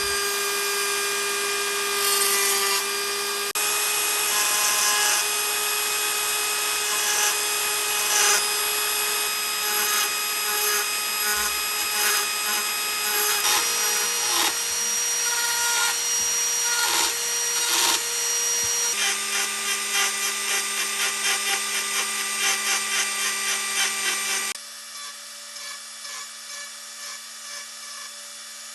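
Mini lathe motor whining steadily while a tool works the spinning workpiece, with a rough cutting and rubbing noise over the whine. The whine steps up in pitch about 13 seconds in and back down about 19 seconds in. About 25 seconds in the cutting noise stops and a quieter whine carries on.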